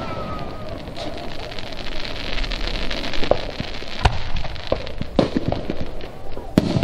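Aerial firework shells bursting in a display: a run of booms and pops, the sharpest about four seconds in, over a steady hiss.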